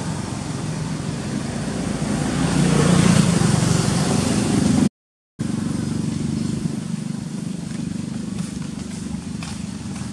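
A motor vehicle's engine running close by, swelling to its loudest about three seconds in and then slowly fading. The sound cuts out completely for about half a second near the middle.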